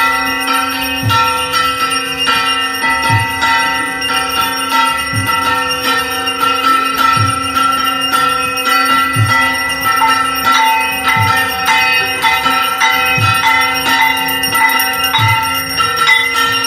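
Puja bells ringing rapidly and continuously for an arati, many bell tones overlapping, with a low beat about every two seconds.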